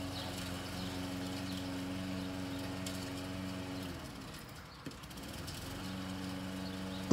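A steady motor hum with several pitches stacked together. About four seconds in it winds down in pitch and stops, then starts again near six seconds.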